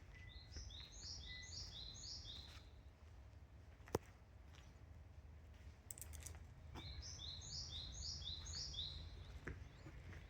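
Japanese tit singing its two-note 'tsupi tsupi' song, two phrases of about four repeats each, the second about seven seconds in, over a steady low background rumble. A single sharp click about four seconds in.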